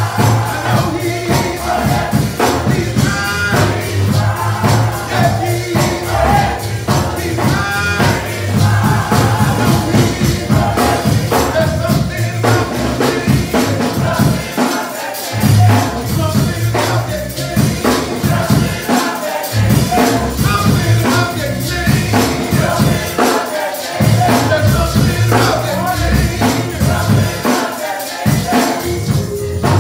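Gospel church choir singing with instrumental accompaniment, a strong pulsing bass and a tambourine keeping the beat.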